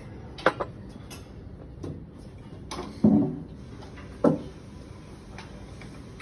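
Dishes and cutlery clinking: a few separate sharp clinks and knocks, the loudest about three seconds in and again just after four seconds, over a low steady background noise.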